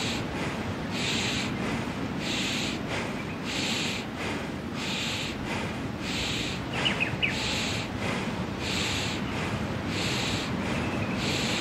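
Bhastrika bellows breathing: forceful, rhythmic breaths through the nose, a sharp hissing breath about every 1.3 seconds. A few brief high chirps come about seven seconds in.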